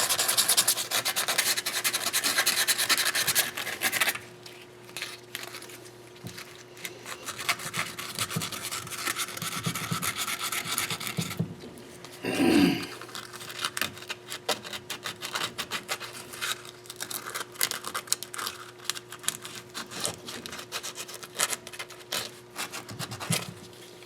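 Hand scrubbing and scraping on engine metal during parts cleaning: a hard, steady scrub for the first few seconds, a second scrubbing stretch a few seconds later, then short scratches and light taps. About halfway through there is a brief sliding sound.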